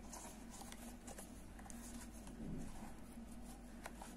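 Faint soft ticks and rustling of a crochet hook and yarn being worked through the holes of a wooden bag side, over a steady low hum, with a brief low sound about two and a half seconds in.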